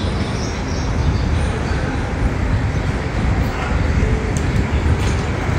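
Steady street traffic noise: a low rumble of passing vehicles.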